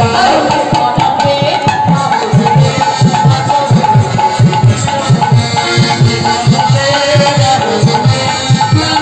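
Kirtan music led by two khol drums, the two-headed clay barrel drums of Bengali devotional singing, beaten in a fast, steady rhythm under a held melody line.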